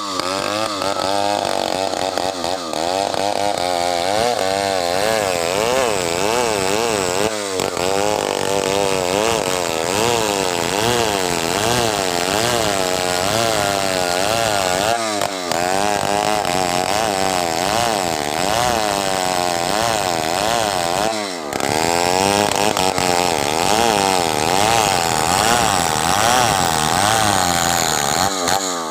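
Stihl chainsaw running at high revs while cutting wood, its pitch wavering up and down under load. It drops off briefly three times and again near the end.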